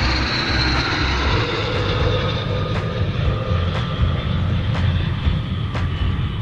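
Wind rushing and buffeting over a camera microphone in an open glider cockpit: a steady rush with an uneven low rumble, a faint high whine and a few light clicks.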